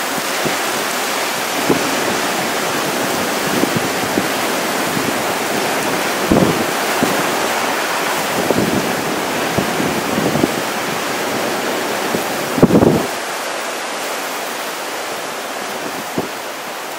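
Heavy wind-driven rain and gusting wind of a hurricane's early squall, a steady rushing hiss. A few gusts hit the microphone louder, the strongest about two-thirds of the way through.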